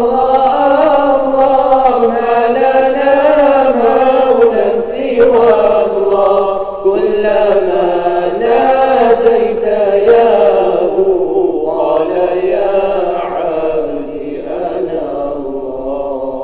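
Voices chanting an Islamic devotional dhikr in long, drawn-out, wavering notes, without words that can be made out. The chanting gets quieter near the end.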